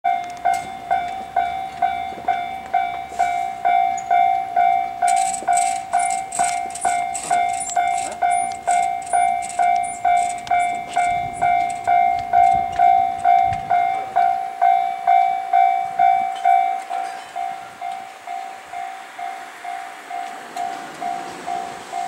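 Japanese level-crossing warning bell ringing steadily, about two strikes a second, a sign that a train is approaching and the barriers are down. It rings softer over the last few seconds.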